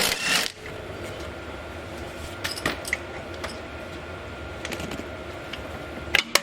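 Scattered light metallic clicks and clinks of hand tools, sockets and wrenches, being handled, with two sharp clinks near the end.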